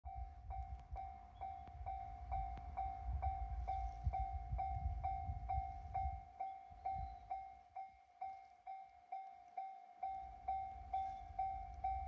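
Japanese railway level crossing alarm ringing, a repeating electronic bell ding about twice a second, sounding because a train is approaching. A low rumble runs under it and drops away for a few seconds midway.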